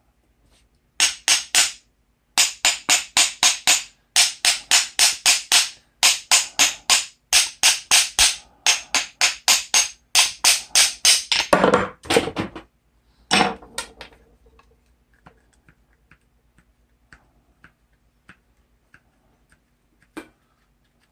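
Rapid hammer blows knocking an antique hatchet's head off its wooden handle, in runs of about five strikes a second. The blows stop about twelve seconds in, with a couple more after that and then only a few faint taps.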